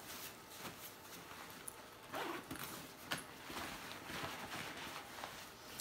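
Quiet rustling and light knocks of a fabric diaper bag and its contents being handled, with a few louder rustles about two and three seconds in.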